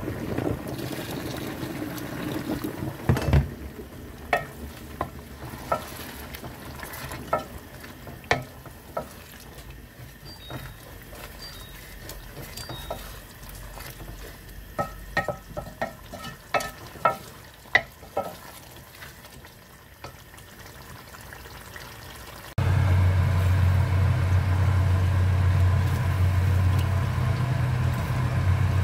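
A wooden spoon stirs a chicken and pea curry in an aluminium pot. The food sizzles, and the spoon knocks against the pot's sides again and again. About 22 seconds in, a loud, steady low hum starts suddenly.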